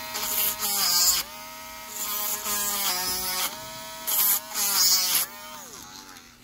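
Small handheld rotary tool whining as its bit scrubs the corroded brass contacts of a pinball lamp socket, in four loud scraping bursts. The motor pitch sags as the bit bites and falls away near the end.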